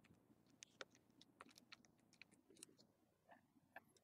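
Near silence with faint, scattered small clicks and ticks of a small screwdriver working the screws of a tiny metal bracket inside a Droid Turbo 2 phone.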